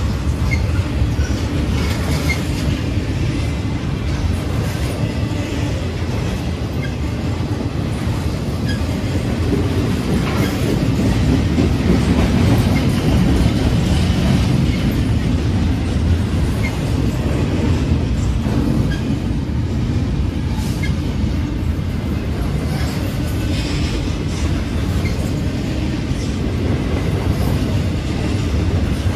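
Intermodal freight cars, well cars loaded with containers and trailers, rolling past: a steady rumble and clatter of steel wheels on rail.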